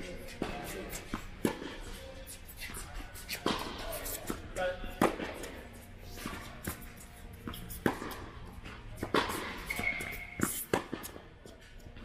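Tennis balls being struck by rackets and bouncing on the court during a rally: sharp pops about once a second over background music.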